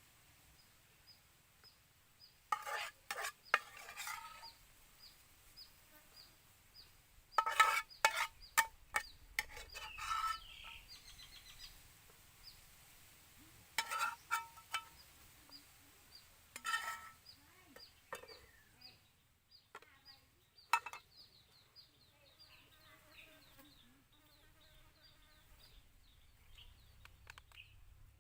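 Utensils clinking and scraping against pots and dishes in several short bursts, against a small bird chirping steadily about twice a second.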